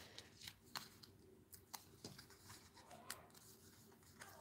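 Near silence, with a few faint, scattered ticks and rustles of cardstock pieces being handled.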